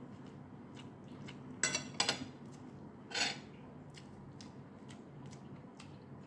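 Cutlery clinking against a plate while eating, with two sharp clinks close together about a second and a half in and a brief scrape a second later. Faint small ticks and a low steady hum lie under it.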